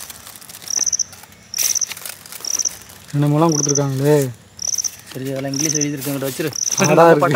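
A cricket chirping steadily, one short high chirp about every second, over light paper rustling as cards are handled. From about three seconds in, a low drawn-out voice-like sound comes three times, each lasting about a second, louder than the rest.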